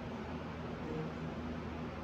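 Steady hiss and low hum of air-handling equipment, such as a fan or air conditioning, running evenly throughout.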